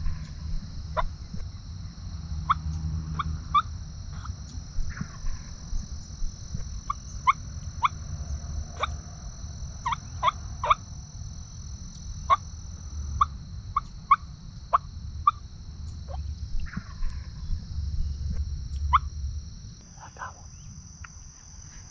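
Wild Osceola turkey gobblers gobbling repeatedly, short sharp calls coming in scattered bursts, some in quick runs of several, over a steady high-pitched hum and a low rumble.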